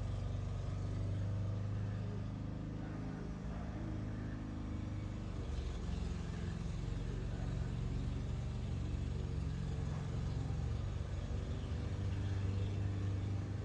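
Steady low hum of an engine running, holding one even pitch throughout.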